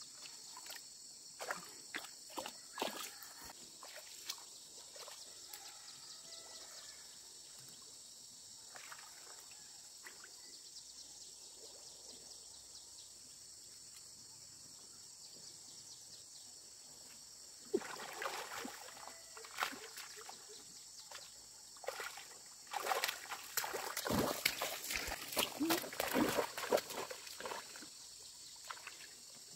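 Shallow, muddy paddy water splashing and sloshing as hands grope for fish, in short bursts near the start and a longer, louder run in the second half. A steady chorus of insects runs underneath.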